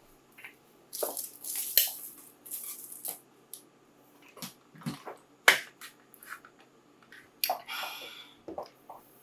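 Close-miked crinkling crackles and sharp clicks from food and its packaging being handled, in a run of short irregular bursts that are loudest about one to three seconds in, with another crinkly burst near the end.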